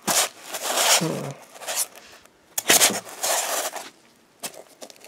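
Styrofoam packing blocks being pulled apart, scraping and rubbing against each other in several noisy bursts, with tape and plastic wrap crinkling.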